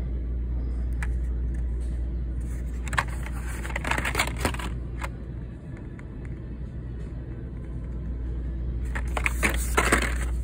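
Plastic blister packs and cardboard of Hot Wheels cards rustling and crinkling as they are handled in their shipping box, in two bursts (about three seconds in and again near the end), over a steady low hum.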